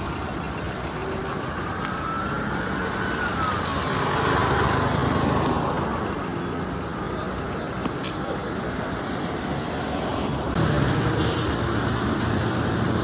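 Road traffic: a steady hum of passing car and truck engines and tyres, swelling as a vehicle goes by about four to six seconds in, with a nearer engine louder from about ten seconds in.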